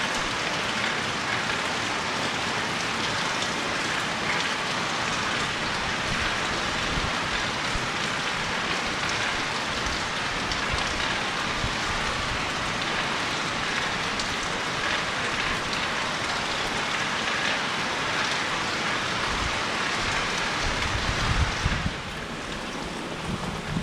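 Steady rain falling and pattering on surfaces. A few low rumbles come near the end, after which the rain is quieter.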